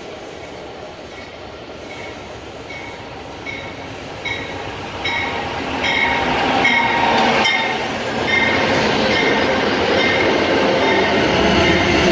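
Amtrak GE P42DC diesel locomotive pulling into a station with its bell ringing about twice a second, the bell growing louder as it nears. It then rolls past with rising rumble, followed by the passenger cars rolling by with a steady hum under the wheel noise.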